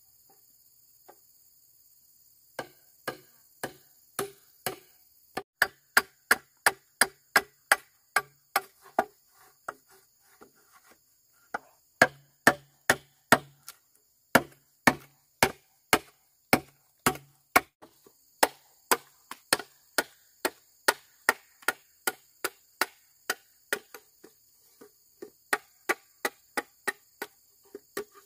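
Repeated chopping with a blade, about two strokes a second, each a sharp knock, with a short pause about ten seconds in. Insects shrill steadily in the background.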